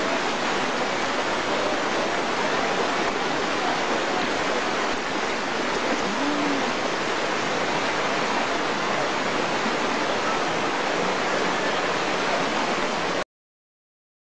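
Fast-flowing floodwater rushing across a road, a steady noise that cuts off suddenly near the end.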